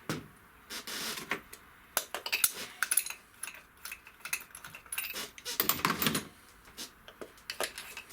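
Hot, freshly removed spark plugs clinking and clattering against each other and against metal as they are handled: a run of irregular light metallic clicks and knocks.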